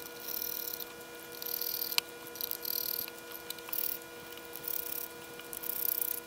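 Precision screwdriver backing small screws out of a handheld vector network analyzer's case: short bursts of faint scraping from the turning screws, about one a second, with an occasional click.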